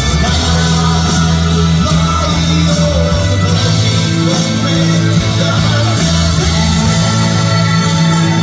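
A man singing an Italian pop song live into a handheld microphone, amplified, over steady backing music with a sustained bass line.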